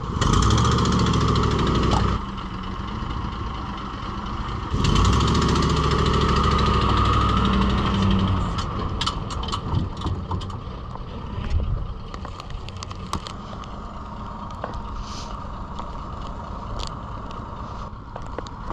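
Pickup truck engine running as it reverses a boat trailer down a launch ramp. It is louder twice in the first eight seconds, then settles to a lower, steady running with scattered light clicks.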